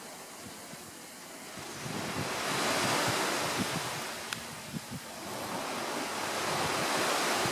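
Rushing wind noise that swells twice, around three seconds in and again near the end, with low buffeting on the microphone.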